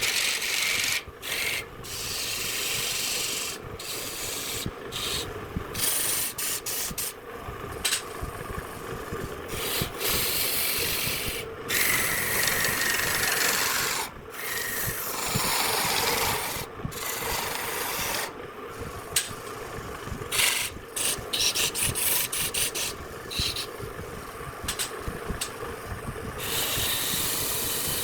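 Wood spinning on a lathe being worked by a hand-held tool or abrasive: a rasping, hissing scrape that breaks off and starts again many times, over a faint steady hum.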